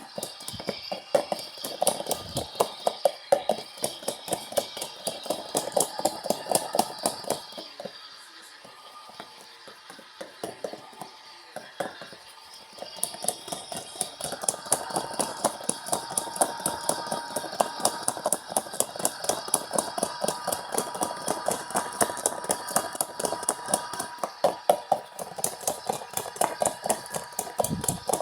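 LG washing machine running its heavy-load cycle: rapid, evenly spaced clicking and rattling as the drum turns. The clicking eases off for a few seconds about a third of the way in. It then comes back with a steady motor whine under it.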